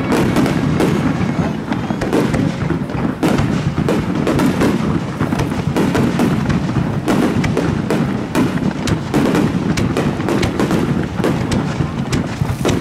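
Rapid barrage of aerial firework shells bursting, one bang hard on another with no pause.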